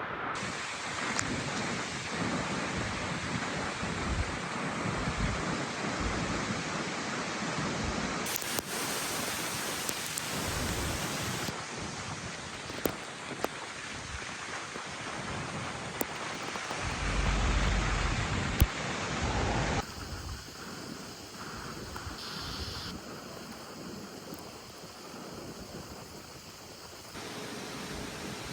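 Typhoon wind and rain rushing steadily, with gusts buffeting the microphone in a low rumble around the middle and a few sharp clicks.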